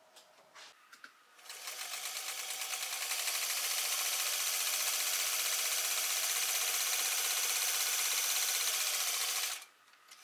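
Electric sewing machine stitching a seam through two layers of denim. It starts about a second and a half in, picks up speed to a steady rapid stitching, and stops suddenly near the end.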